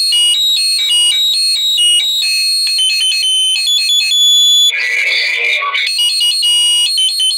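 Olympus Note Corder DP-201 voice recorder playing back a recording through its small built-in speaker: a tinny, high electronic tune of quick stepped notes, with a brief rougher, noisier passage about five seconds in.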